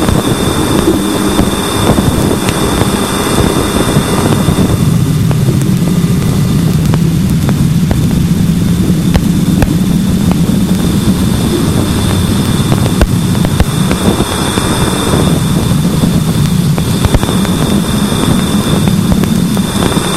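Voyager 2 plasma wave instrument's wideband recording near Neptune played as audio: a dense, steady hiss strongest in the low range, with a constant thin tone from the spacecraft power supply. Scattered sharp clicks run through it, interference from the particle instruments. The middle of the noise thins out about five seconds in.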